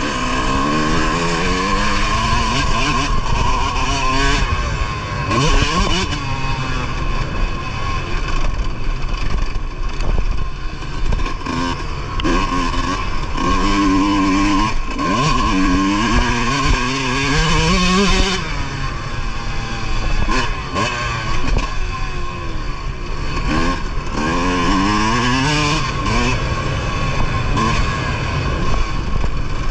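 Motocross bike engine revving hard and easing off through a lap, its pitch climbing and dropping again and again as the rider opens and closes the throttle and shifts gears.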